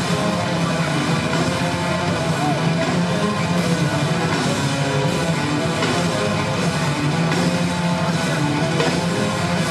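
Heavy metal band playing, with electric guitars and a drum kit, continuous and loud.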